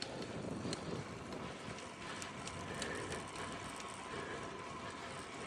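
Bicycle on the move: a steady rush of tyre and wind noise, with a few light mechanical clicks from the bike scattered through it.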